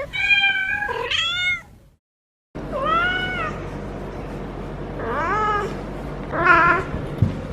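Female feral cat in heat caterwauling: five long, drawn-out yowls that rise and fall in pitch, broken by a short silent gap about two seconds in.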